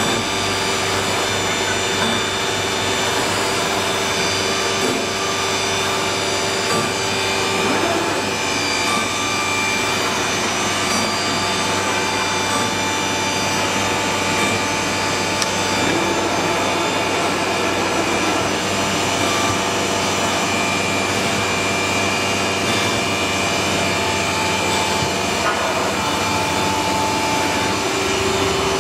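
HG-1325AH3 CNC router running, its drilling head boring holes in a board: a steady machine whine with several held tones over the cutting noise.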